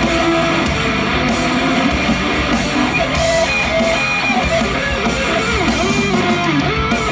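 Live rock band playing an instrumental break: strummed electric guitars over drums and cymbals, with a lead guitar line bending up and down in pitch in the second half.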